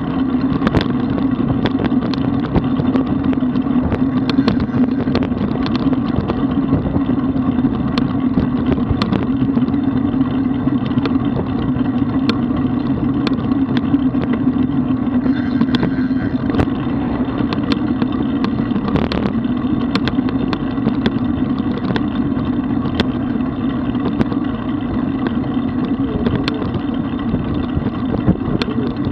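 Steady tyre-on-asphalt rumble and wind noise picked up by a camera mounted on a road bike riding at speed, with scattered short clicks and knocks.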